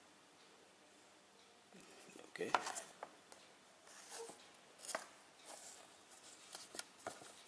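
Cardboard disc box set handled and folded open by hand: soft rustles and a few short taps, the loudest about two and a half seconds in.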